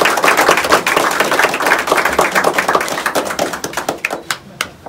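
A room of people applauding, many hands clapping fast, thinning out and dying away near the end.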